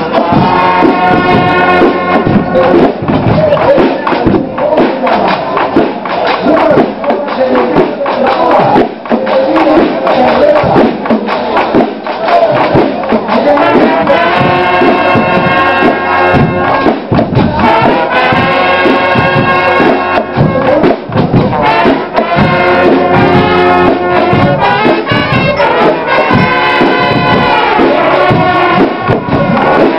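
School marching band playing loudly: drums and cymbals under brass horns, with long held horn notes standing out in the second half.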